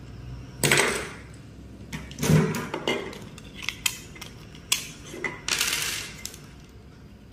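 White plastic wiring fittings, a bulb holder and a square plastic box, handled on a wooden table: a series of sharp knocks and clicks, with a longer scrape about two-thirds of the way through.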